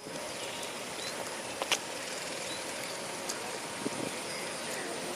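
Outdoor wetland ambience: a steady noise bed with a few brief, high bird chirps and a couple of sharp clicks about a second and a half in.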